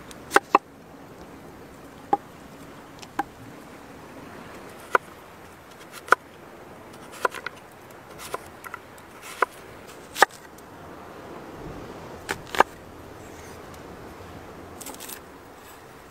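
Chef's knife cutting through a peeled onion on a wooden log-slice board: about a dozen sharp, irregularly spaced knocks of the blade on the wood, over a steady background hiss. A short rustle follows near the end.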